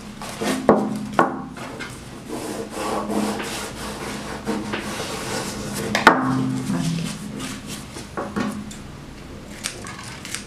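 Hands rubbing and pressing glued crumpled kraft paper onto the sides of an MDF box: steady paper rustling with a few sharp knocks as the box is turned and handled. Near the end, scissors snip off excess paper.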